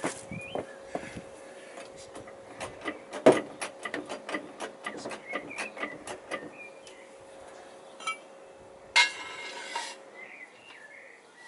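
Metal clinks and knocks as a steel strip and a jack are handled and positioned under a van's wheel, with one louder knock about three seconds in and a short scraping rush near the end. Small birds chirp in the background.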